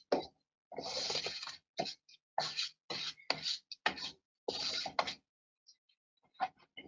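Grout being worked with a hand tool: a series of short scraping strokes, about eight in the first five seconds, irregularly spaced and each cutting off sharply. After a pause, two or three shorter scrapes come near the end.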